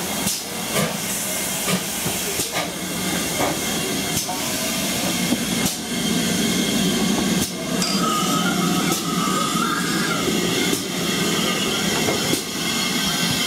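Great Western Hall-class steam locomotive No. 6989 Wightwick Hall easing slowly into a platform and standing there, with steady steam hissing and irregular metallic knocks.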